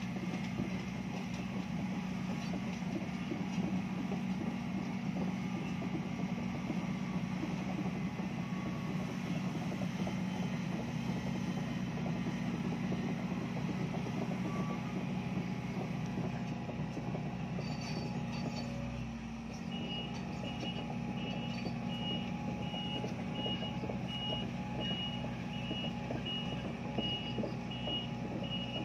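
Tracked excavator's diesel engine running steadily as the machine travels, with its tracks clattering. From about two-thirds of the way through, its travel alarm beeps repeatedly, about one and a half high beeps a second.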